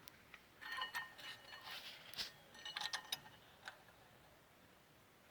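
Light metallic clicks and clinks of small steel brake parts being handled: the spring clips of a disc brake caliper being bent and fitted so they hold tight and stop the pads rattling. It is a loose scatter of sharp ticks, some with a short ring.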